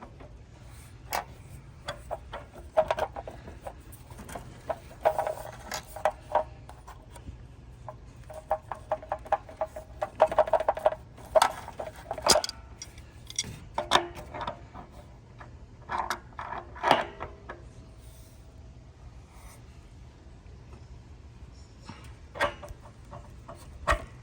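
Tools clicking, knocking and scraping against pipe fittings while a connection on a gas water heater is tightened. There are irregular clatters with short rattling runs through the middle, then quieter work with a few knocks near the end.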